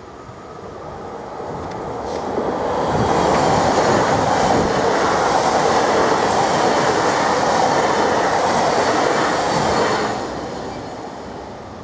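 NMBS AM08 Siemens Desiro ML electric multiple unit passing close by over a level crossing. The rush of wheels on rail builds over the first three seconds, holds loud and steady for about seven seconds, then fades as the train clears.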